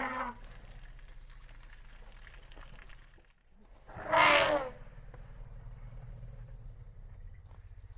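An elephant trumpets once, a short, loud blast about four seconds in, over a low steady hum. The tail of an earlier call ends just at the start.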